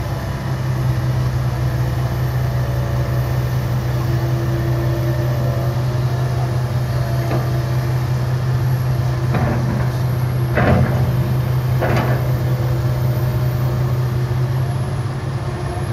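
Steady drone of diesel engines from a Komatsu PC160LC excavator and idling dump trucks working together. Three sharp knocks about nine to twelve seconds in, as a bucketful of soil is dumped into the steel truck bed.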